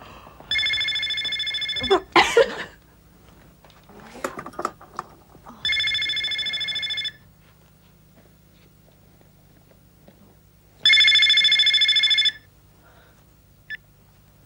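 Telephone ringing three times, each ring about a second and a half of fast-warbling tone, about four seconds apart. A brief noisy burst follows the first ring, and a short click comes near the end.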